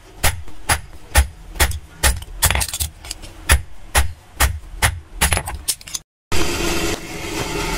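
A hand hammer striking metal on an anvil in a steady rhythm of about two to three ringing blows a second, as the knife blank is forged. About six seconds in the sound cuts out briefly, then a steady hum comes in with a few more blows.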